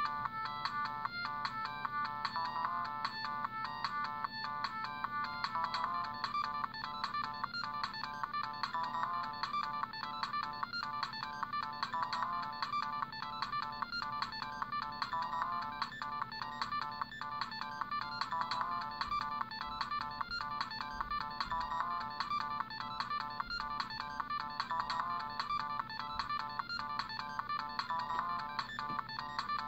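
Siemens C60 mobile phone playing one of its built-in ringtones: a short electronic melody of quick notes that loops about every three seconds, over a steady low hum.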